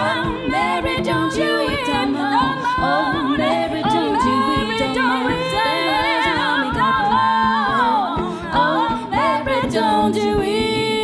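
A woman singing a wordless melody over layered vocal harmonies, several voice lines sounding at once, with no instrument to the fore.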